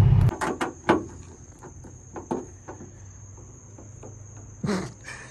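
Crickets trilling in a steady high-pitched drone, with a few sharp clicks and knocks in the first second and again around two seconds in, and a short louder knock near the end.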